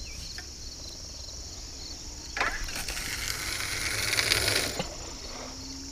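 A spinning rod being cast. A sharp swish comes about two seconds in, then line hisses off the spinning reel's spool for about two seconds and cuts off with a light knock. Insects chirr steadily throughout.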